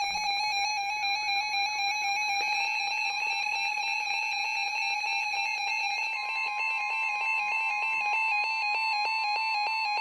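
NOAA Weather Radio alert tone: a steady electronic alarm of several pitches held for about ten seconds, signalling that a new warning is about to be broadcast. A further steady tone joins about six seconds in.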